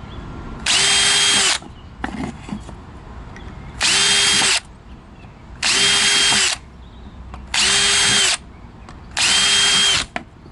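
DeWalt 20V MAX brushless cordless drill pre-drilling small pilot holes in walnut: five short runs of about a second each, the motor whine spinning up and winding down each time.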